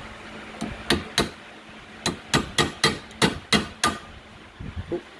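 Hammer tapping repeatedly at the steel pin that holds a paw in a Virutex FC116U lock mortiser: about ten sharp metallic strikes, three spaced ones and then a quicker run of seven, with a few softer knocks near the end.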